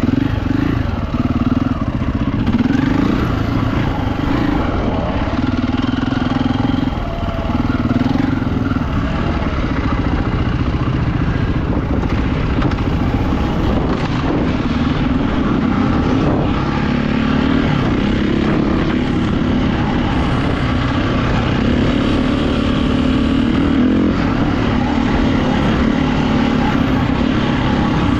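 Enduro motorcycle engine heard up close from the bike itself, running continuously under load with its pitch shifting as the throttle opens and eases.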